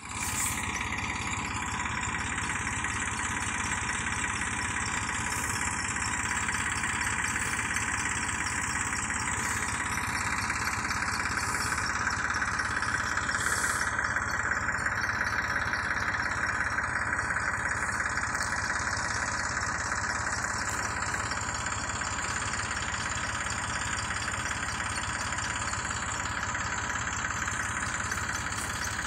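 Farm tractor engine running steadily at low speed, driving a spray pump that feeds a long hose to a hand-held spray gun.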